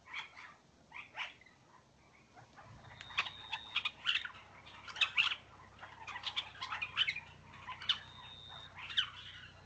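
Young male regent honeyeater singing an immature song that he is still learning: a busy run of quick chirps and squeaky notes, with a held high whistle twice.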